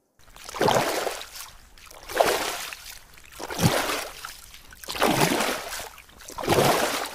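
Swimming sound effect: rhythmic splashing water strokes, five of them, one about every second and a half.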